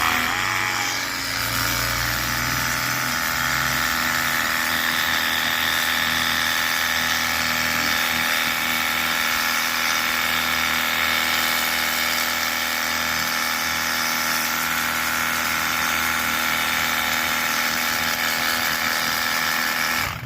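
Battery-powered cordless pressure washer running, its motor and pump making a steady whine of many tones. The pitch drops slightly in the first couple of seconds, then holds steady until the washer cuts off suddenly at the end.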